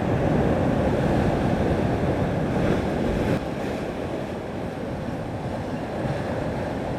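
Wind buffeting the microphone over the wash of surf, a steady rushing noise that is louder for the first half and eases about three and a half seconds in.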